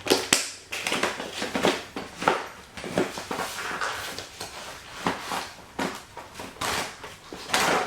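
Plastic tackle box and fishing lures being handled: an irregular string of clicks, rattles and rustles.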